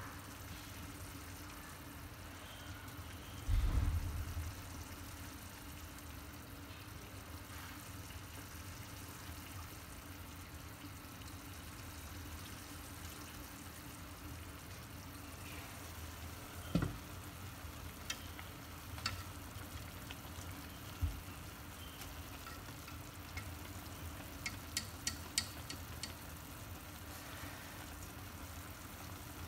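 Fish and mustard-green soup simmering in a covered stainless steel pot, a steady soft bubbling hiss. A dull knock comes about four seconds in, then a few light clicks and taps later on, with a quick run of small ticks near the end.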